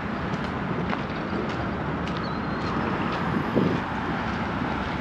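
Steady low rumble of urban outdoor background noise, with a few faint clicks and a brief louder rustle about three and a half seconds in.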